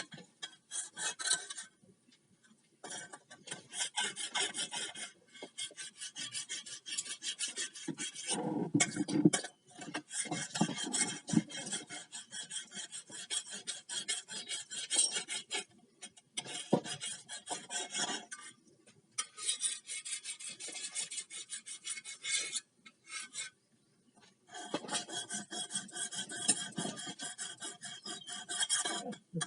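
A metal file rasping rapidly back and forth along the edge of a grass-cutting blade to sharpen it. The strokes come in runs, with a few short pauses in between.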